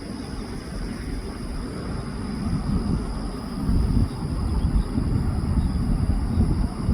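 Jet engine rumble of a Boeing 767-300 airliner on its landing, growing louder about four seconds in.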